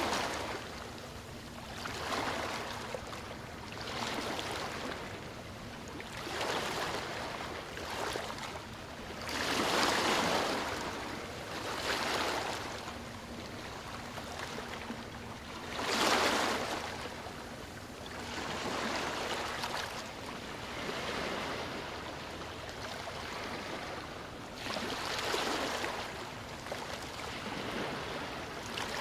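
Sea waves washing onto a shore: surges of surf every two or three seconds, the biggest about ten and sixteen seconds in.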